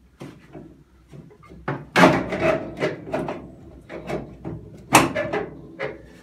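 Clunks and scrapes of a classic Mini's pedal box being wiggled side to side and pulled down out of the bulkhead, with two loud knocks about two and five seconds in.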